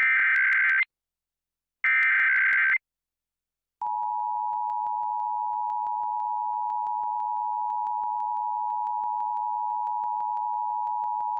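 Emergency Alert System test broadcast: two short bursts of SAME digital header data, about a second apart. About four seconds in, the steady EAS two-tone attention signal begins.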